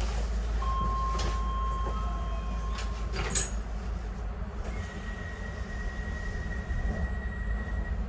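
Docklands Light Railway train standing at a station platform, its equipment giving a steady low hum. A thin steady tone sounds from about half a second in for a couple of seconds, with a few short knocks, then a higher steady tone from about five seconds in.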